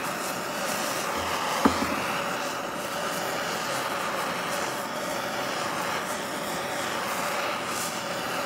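Gas blowtorch flame hissing steadily as it is played over a wooden handle to singe it. One sharp click about two seconds in.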